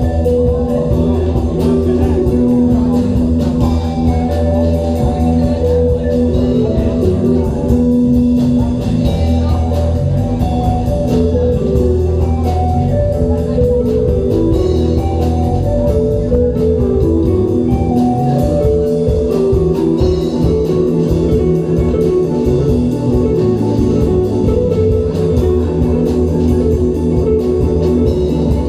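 Live rock band playing: a guitar carrying a moving melodic line over bass guitar and drums.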